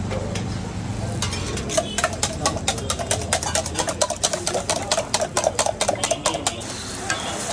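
A spoon rapidly beating egg mixture in a steel tumbler: a fast, even run of metallic clinks, about six a second, starting about a second in and stopping near the end.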